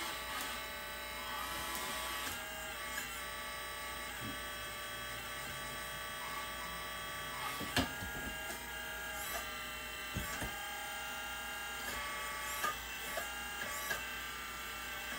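Electric hydraulic pump of a Kabolite K988 1/14-scale RC wheel loader running with a steady whine that shifts in pitch as the boom and bucket cylinders move. A few short clicks and knocks come from the model partway through.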